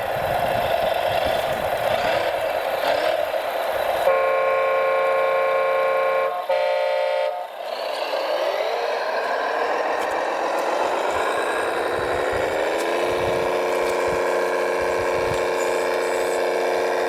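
Radio-controlled model heavy truck running, its electric drive whining, with a horn sounding in a long blast about four seconds in and a short one a couple of seconds later. The motor pitch then rises and settles into a steady whine.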